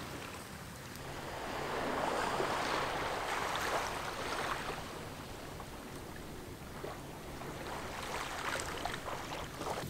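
Small river waves lapping on a sandy shore, a soft wash that swells about two seconds in and then eases off.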